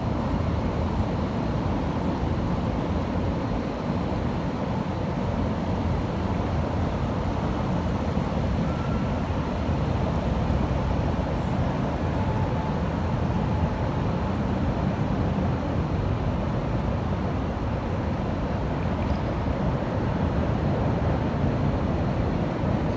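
Wind buffeting the microphone: a steady low rumble that never lets up.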